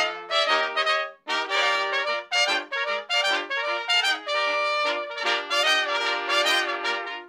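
Eight overdubbed trumpet parts, all played by one trumpeter, play a quick passage of short notes in harmony. There is a brief break about a second in, then a held chord from about five seconds in that stops just before the end.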